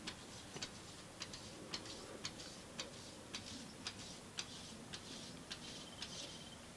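Faint, sharp light clicks, irregular, about two or three a second.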